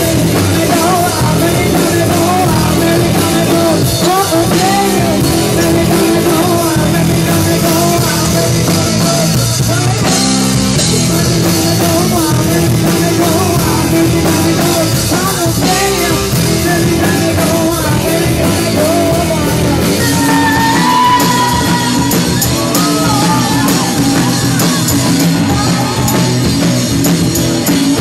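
Live rock band playing loud, with drum kit and electric guitar and a woman singing into a microphone.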